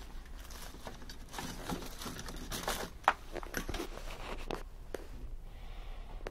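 Rustling, shuffling and scattered small clicks from handling and moving about, with one sharp click about three seconds in, over a low steady hum.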